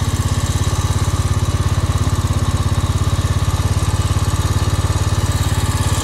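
A vehicle engine idling steadily, a fast, even throb.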